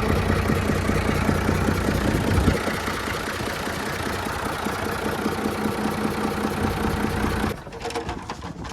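Restored Ashok Leyland 680 diesel engine running on its first start, with an even, rapid diesel knock. It eases a little in level about two and a half seconds in, and the engine sound cuts off abruptly near the end.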